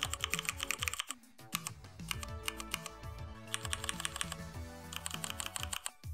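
Fast typing on a mechanical keyboard, heard as the Mechvibes app's Cherry MX Black (ABS keycaps) key-click sound pack: rapid runs of sharp clicks, many a second, with a short break a little after a second in. Background music plays underneath.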